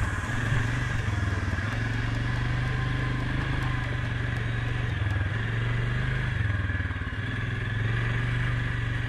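Suzuki KingQuad 750 ATV's single-cylinder engine running steadily under way on a dirt trail, the throttle easing off and coming back on a few times.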